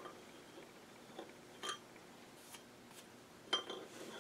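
A few faint metallic clicks and taps as a cylinder sleeve is set and started by hand into the heated bore of an outboard engine block, the warmed block letting the press-fit sleeve slip in.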